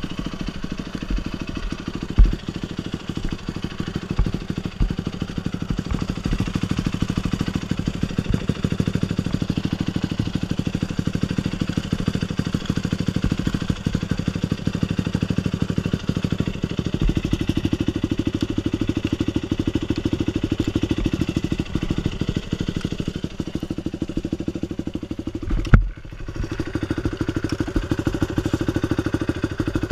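Dirt bike engine idling steadily, with a short thump about two seconds in and another near the end.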